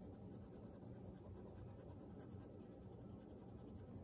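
Faint scratching of a graphite pencil shading on paper.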